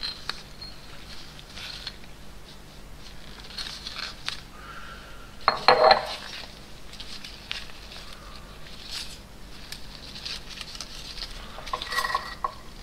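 Metal cup and small parts clinking and clattering as they are handled, with a louder clank about halfway through and short ringing clinks near the end.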